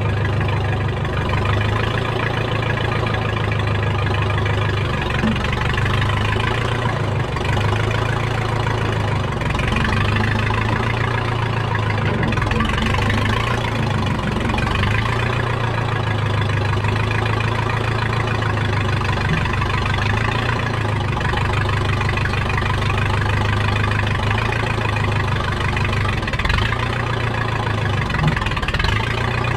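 Engine of a circa-1970 Case 580 Construction King backhoe running steadily at idle, an even low drone.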